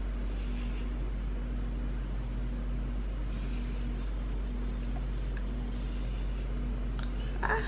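Steady low electrical hum over faint room noise, with a few faint soft swishes from a makeup brush stroking across the cheek. A brief, sharper sound comes near the end.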